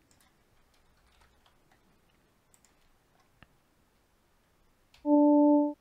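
Faint computer keyboard and mouse clicks, then near the end a loud note from a home-made software synthesizer starts: a steady tone built from three sine waves, the fundamental with its second and third harmonics. It holds flat instead of ringing away, because the amplitude envelope is unsuited to a bell, so it doesn't sound like the bell it is meant to be.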